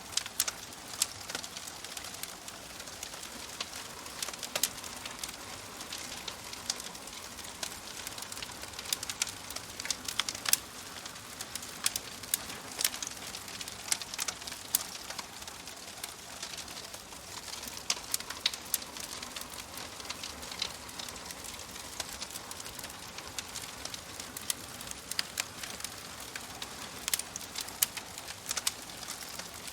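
Crackling fire: a steady soft hiss with frequent irregular sharp pops and crackles.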